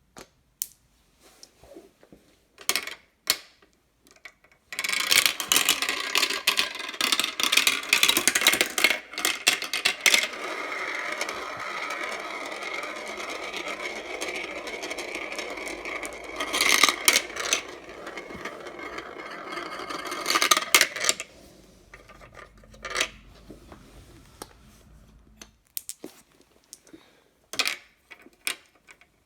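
Marbles rolling and clattering through a marble run. First come a few separate clicks; then, from about five seconds in, a dense continuous rattle of many marbles rolling and knocking together for about fifteen seconds. Near the end it thins out into a low rolling rumble and scattered clicks.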